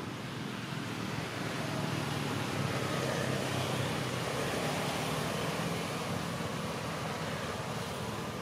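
Steady rumble of distant road traffic, growing louder to its peak around the middle and easing off toward the end.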